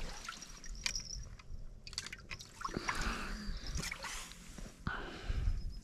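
Small water sounds, trickling and dripping, mixed with scattered light clicks from handling fishing tackle and a fish.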